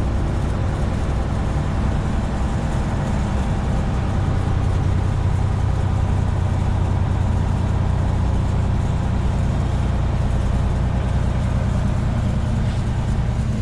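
Semi truck's diesel engine and road noise heard from inside the cab while driving, a steady low drone.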